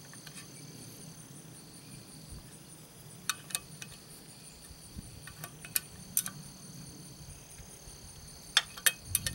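Scattered sharp metal clicks from a wrench working the bolts of an Evinrude 9.9 outboard's lower unit, some in quick pairs and a few more near the end, over a steady high chirring of crickets.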